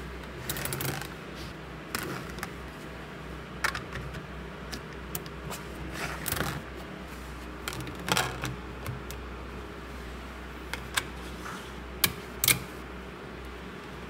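Small magnetic metal balls clicking and clattering as slabs of them are handled and snapped into place, in scattered clicks with two sharp ones close together near the end. A low steady hum runs underneath.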